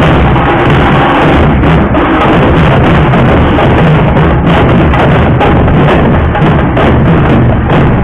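Loud, dense drumming from a procession drum band: large round frame drums beaten together with slung dhol drums, a continuous pounding beat.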